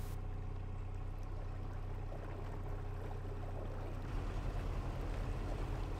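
Narrowboat engine running steadily at cruising speed, a low even hum with water moving past the hull; about four seconds in the low throb takes on a more distinct regular pulse.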